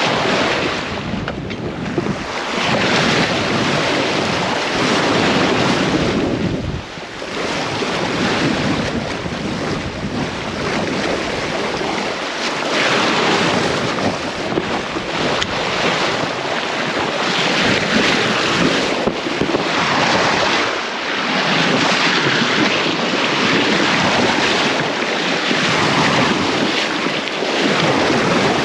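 Sailing yacht moving through open-ocean swell: water rushing and breaking along the hull, with wind buffeting the microphone. The rush swells and eases every few seconds.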